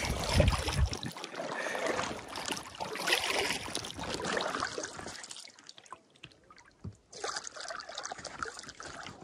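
Paddles dipping into lake water beside a tandem inflatable kayak, with splashing and water trickling off the blades. A brief low rumble comes near the start.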